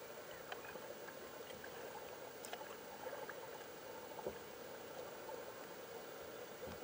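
Faint water sounds of a kayak being paddled on calm river water: gentle gurgling with a few light splashes or knocks from the paddle.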